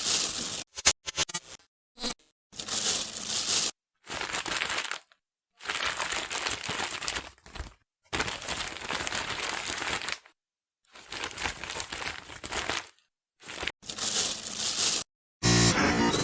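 Digital glitch sound effect: a series of harsh static-noise bursts, each a second or two long, cut on and off abruptly with short silent gaps between. Rapid stuttering clicks come about one to two seconds in.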